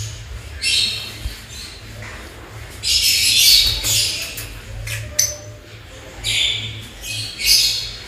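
Lovebirds squawking and chattering in bouts of shrill calls, loudest around three seconds in and again around six to seven seconds in.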